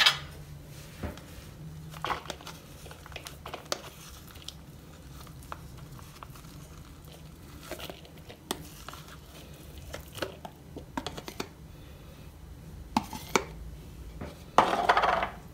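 Metal spoon scraping and tapping crumbly cottage cheese out of a plastic tub into a plastic bowl, with the tub crinkling; scattered short clicks and scrapes, and a longer, louder scrape about a second before the end.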